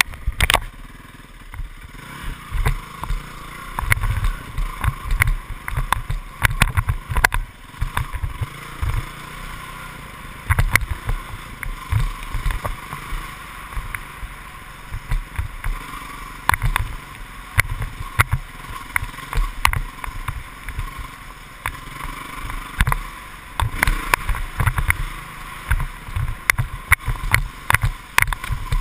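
Dirt bike engine running as the bike rides a bumpy woodland trail, heard through a helmet-mounted camera, with many sharp knocks and low thumps from the ride over the ground.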